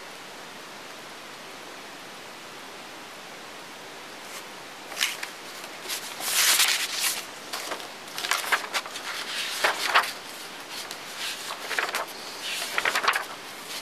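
Steady hiss, then from about four seconds in, irregular rustling and crackling of papers being handled close to the microphone.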